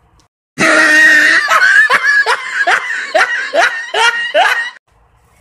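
A loud burst of comic laughter, likely an edited-in laugh sound effect. It opens with one long held note, then goes into about eight rhythmic ha-ha pulses, each falling in pitch, and cuts off suddenly near the end.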